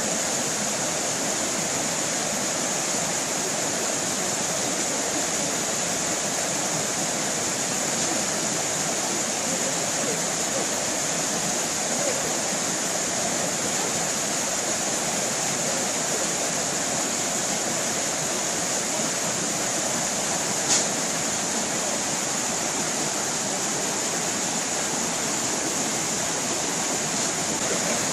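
Tropical forest stream: water flowing in a steady, unbroken rush. One brief click is heard about three-quarters of the way in.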